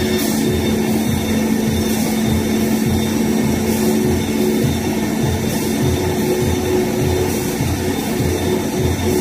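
Automatic veneer peeling line running: a steady machine hum with a rapid low knocking, and a short, sharp stroke about every two seconds.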